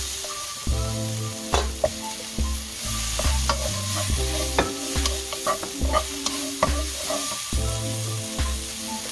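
Vegetables sizzling as they are stir-fried in a granite-coated wok. A wooden spatula scrapes and knocks against the pan, with sharp clicks about once or twice a second over a steady sizzle.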